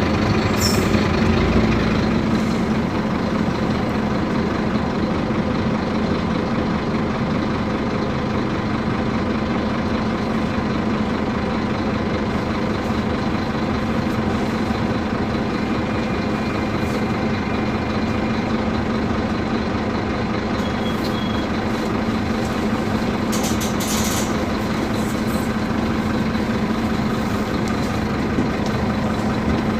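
Scania K250UB bus's five-cylinder diesel engine running steadily, with a slightly heavier rumble in the first couple of seconds. Brief hisses cut in a couple of times, the longest about three-quarters of the way through.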